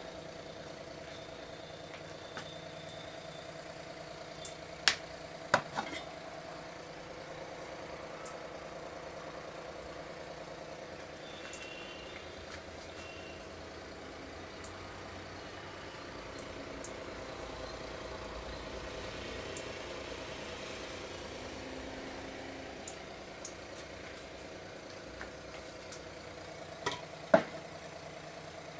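Steady mechanical hum with a few sharp knocks about five seconds in and again near the end.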